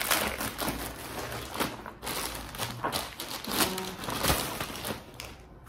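Plastic courier bag and bubble wrap crinkling and rustling as a package is handled and opened, dying down near the end.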